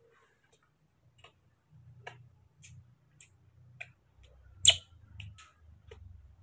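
Newborn baby monkey suckling milk from a small plastic feeding bottle: soft wet mouth clicks on the teat, about two a second, with one sharper click near the middle and low handling rustle of the towel.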